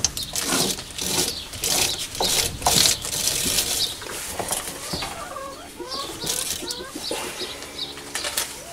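An 8 mm thread being tapped into a lathe mandrel by turning the mini lathe's chuck by hand, with the tap held in the tailstock drill chuck. A sharp click comes at the start, then irregular clicks and scraping, with a few short squeaky chirps near the middle.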